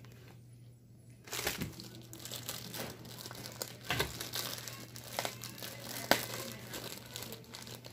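Thin plastic packaging crinkling and rustling as it is handled and pulled open by hand. The crinkling starts about a second in, with one sharper crackle late on.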